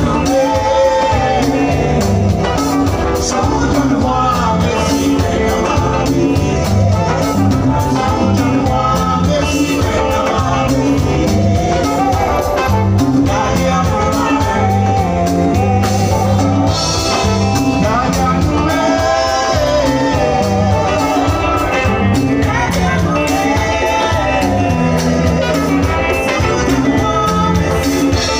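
Live band playing: drum kit, electric guitar and keyboards over a steady beat and repeating bass line, with a man singing lead and women singing backing vocals.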